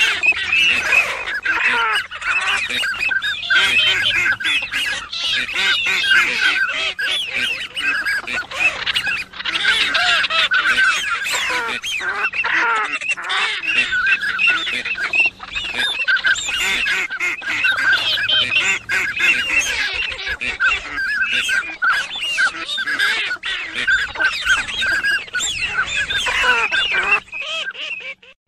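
A flock of Eurasian teal calling: a dense, continuous chorus of many short, overlapping calls that cuts off shortly before the end.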